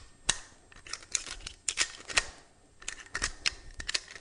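Sharp metallic clicks and clacks of a Makarov PM pistol and its loaded magazine being handled: about a dozen irregular clicks, with quieter handling noise between them.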